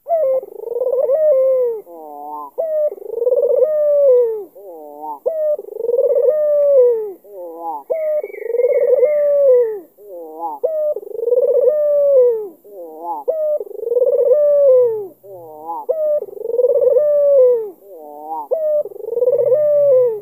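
White (albino) ringneck dove (Barbary dove, 'puter') cooing in a steady series, about nine phrases one every two seconds or so, each a long rolling arching coo with quick shorter notes between phrases.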